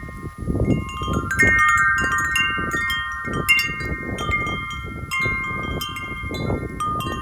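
Harmonic tube wind chime ringing hard in gusty wind, its tubes struck over and over so that the tones pile up and ring on together. Wind gusts rumble on the microphone underneath.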